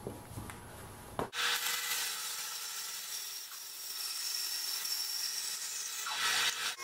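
A band saw cutting through a thick glued-up block of 1x4 lumber, sawing out a curved profile: a steady rasping hiss with a thin high whine. It starts suddenly about a second in, after a few light knocks of the wood being handled.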